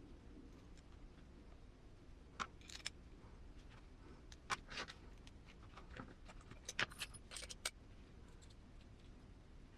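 Small metal screws and parts of an RC crawler transmission being handled during assembly, clicking and clinking lightly. A scatter of sharp clicks comes in the middle stretch over a quiet background.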